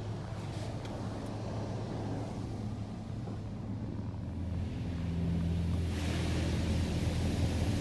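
WashWorld RAZOR touch-free car wash machinery heard from inside the car's cabin: a steady low hum from the gantry's pumps and motors. A steady tone joins about five seconds in, and a hiss of spray over the car grows from about six seconds as the coloured foam is laid on.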